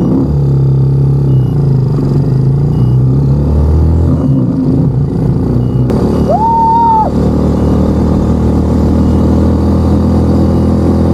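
Motorcycle engine running and pulling away, its pitch shifting as it goes. About six seconds in comes one short beep, like a horn tap.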